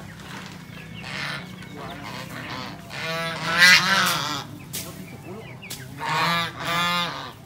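Domestic geese honking: a run of loud honks about three seconds in, then two more bouts near the end.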